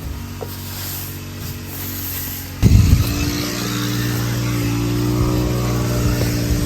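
An engine running steadily. About two and a half seconds in, a loud low thump, after which it runs louder at a higher pitch.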